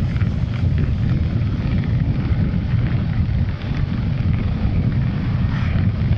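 Motorcycle on the move at a steady cruising speed: engine running with a steady low rumble of road and wind noise on the handlebar-mounted microphone.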